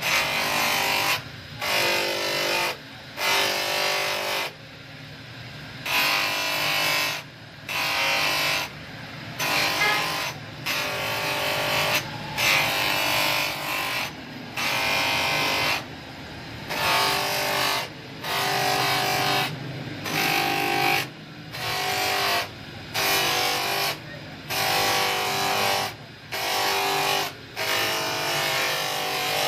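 Motor-driven abrasive polishing wheel spinning with a steady hum, with a steel hammer head pressed against it again and again: each contact, a second or so long, brings a hissing, whining grind, with short breaks between them as the head is turned.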